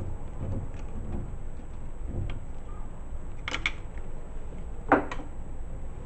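Handling noise from fitting a washing machine's plastic drain pump and its hose: a low rumble with a couple of short clicks past the halfway point and one sharp click near the end.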